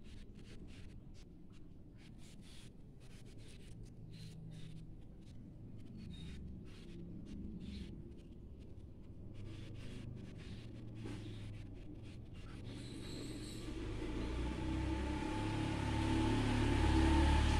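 Oil pastel sticks scratching and rubbing on notebook paper in short, quick strokes. From about two-thirds of the way through, a motor vehicle's engine rumble grows steadily louder and drowns them out near the end.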